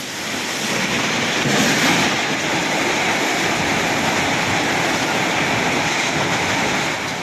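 Steady rushing noise of a storm: strong wind, loud and even, with no distinct events.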